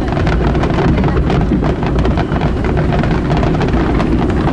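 Wind buffeting the microphone on a boat, a steady low rumble, with dense crackling from fireworks throughout.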